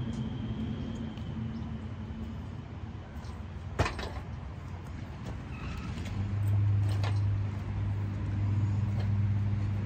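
A sharp metal clank and a second lighter knock during engine installation work. A steady low hum comes up about six seconds in and holds.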